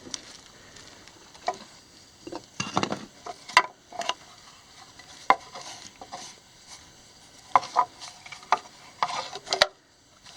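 Irregular crunches, scrapes and clicks of footsteps and movement on loose rock and debris underground.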